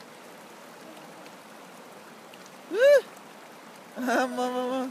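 Shallow hill stream running over rocks, a steady rush. A person's voice breaks over it with a short call that rises and falls about three seconds in, the loudest sound, then a longer held call near the end.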